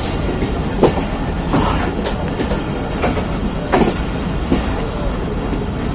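Pakistan Railways passenger coach running on the rails, heard from its open window: a steady rumble and rush of wheels and air, with a few sharp clacks from the wheels.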